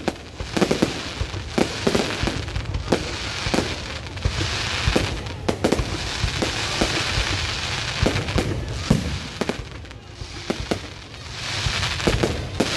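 Fireworks going off: a steady run of sharp bangs, some close together, with crackling hiss between them.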